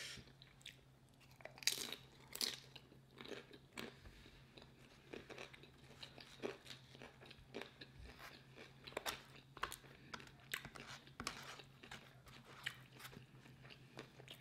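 A person biting and chewing tortilla chips loaded with burrito-bowl food: irregular crisp crunches, loudest about two seconds in, over a faint steady low hum.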